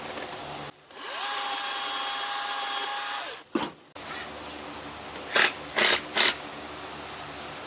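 Chainsaw motor spinning up about a second in, running at a steady pitch for about two seconds, then winding down as the trigger is released. A click follows, then three short, sharp sounds close together near the middle.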